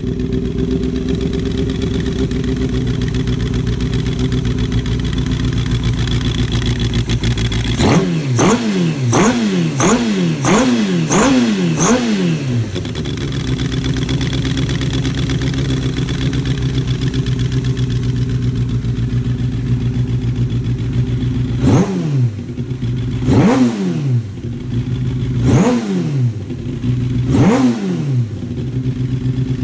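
1994 Suzuki GSX-R750 inline-four engine, on newly fitted ignition coils, idling through an aftermarket slip-on silencer. About eight seconds in, the throttle is blipped about six times in quick succession. Near the end come four more spaced blips, each rev falling back to a steady idle.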